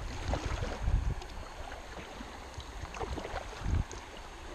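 Kayak paddles splashing and river water rushing while kayaks run a riffle, with a couple of low thumps, one about a second in and one near the end.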